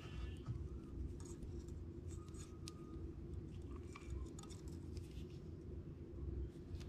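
Faint scattered clicks and small rustles of fishing line and tackle being handled while a rig is tied, over a low steady hum.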